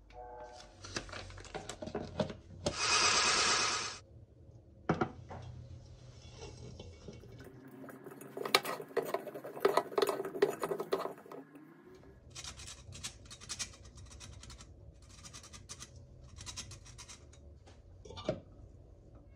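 Kitchen baking handling: a bowl and utensils clinking and scraping, with a loud stretch of scraping a few seconds in. Later comes a series of short rasping bursts as a stainless-steel flour sifter is worked over a greased bundt pan, then a single knock near the end.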